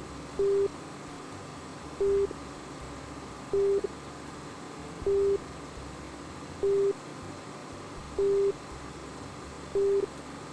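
An electronic beeper sounding one short, low-pitched beep about every second and a half, eight beeps in all, over a steady hiss.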